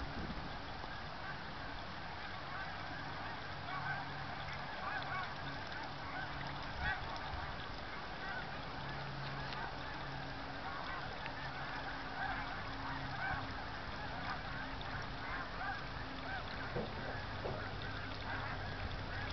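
A large flock of birds calling, many short calls overlapping in a continuous din, with a low hum coming and going underneath.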